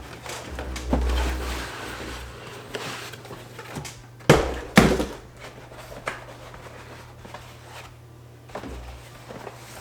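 Hands handling an ultrasonic essential-oil diffuser and its packaging: rustling, a low bump about a second in, and two sharp knocks about half a second apart near the middle as the plastic parts are taken apart.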